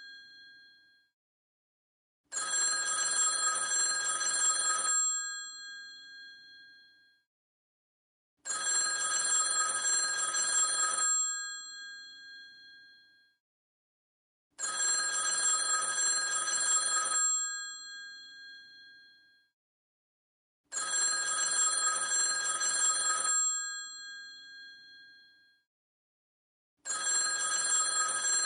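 Old telephone's mechanical bell ringing in a repeating cadence. Each ring lasts about two and a half seconds, then fades out and is followed by a silent pause, and a new ring starts about every six seconds, five times in all.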